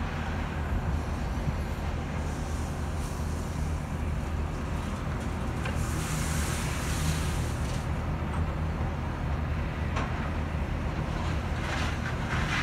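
Steady low drone of heavy diesel machinery working at a railcar unloading site, with an excavator lifting material out of the railcars. A brief rushing noise rises over it about six seconds in.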